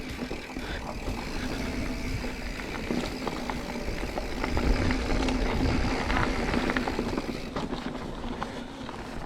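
Mountain bike riding down a loose trail, heard from a bike- or helmet-mounted camera: tyres crunching over loose ground, with a rapid clatter of clicks and rattles from the bike over the bumps and a low rumble of wind on the microphone.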